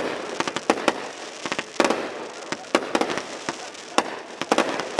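Aerial fireworks display: a dense, irregular barrage of shell bursts, about twenty sharp bangs in five seconds with lingering noise between them.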